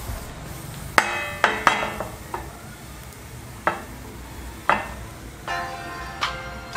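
Metal frying pan knocking against the grate of a portable gas stove as it is set down and moved, several sharp clanks with brief ringing. Soft background music with picked notes comes in near the end.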